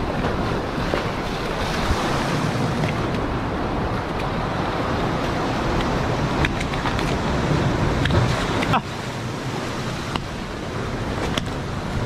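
Ocean surf washing and churning against rocks, mixed with wind buffeting the microphone, with a few faint clicks. The noise drops a step about three-quarters of the way through.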